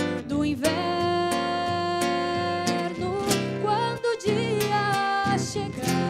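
A woman singing a melody with long held notes, accompanied by plucked acoustic guitar and violin.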